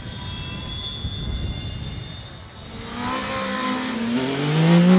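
A motorcycle engine comes in loud about three seconds in and accelerates, its pitch rising steadily as it gets louder. Before that there is only a low, steady rumble.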